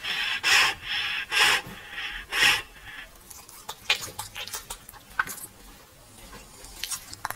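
Short raspy breaths from a stocky, short-muzzled bully-breed dog, about one a second for the first three seconds. Then scattered light clicks and taps.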